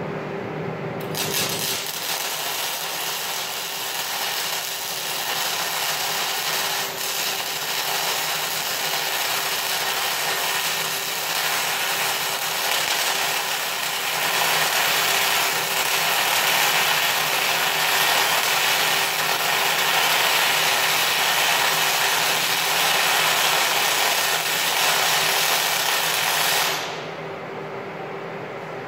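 MIG welding arc on a steel I-beam, crackling steadily as the bead is laid; it starts about a second in and cuts off suddenly near the end. A steady hum runs underneath.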